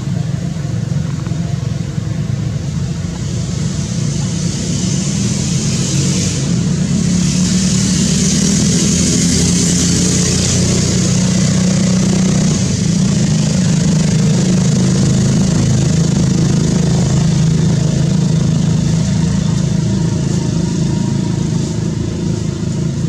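A steady engine drone, low and loud, with a high hiss that swells in the first half and then fades.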